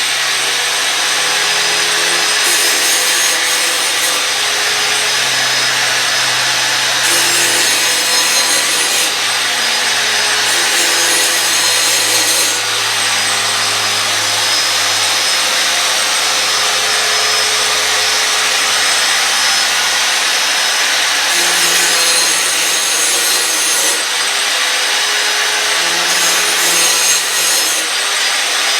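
Power grinder running steadily against a steel mower blade, sharpening it, with music playing underneath.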